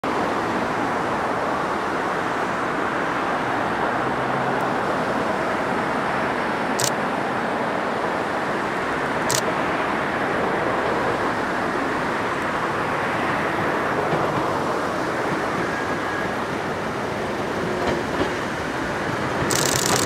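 Steady rushing noise with two short clicks about seven and nine seconds in. Near the end a Hakone Tozan Railway 2000-series electric train comes close, and the sound of its wheels on the rails rises sharply.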